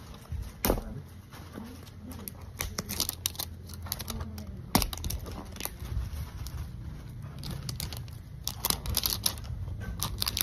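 Paper wrapping being peeled and torn off a Zuru Smashers toy skull, crackling and crinkling, with two sharp snaps about a second and five seconds in and a quick run of crackling near the end.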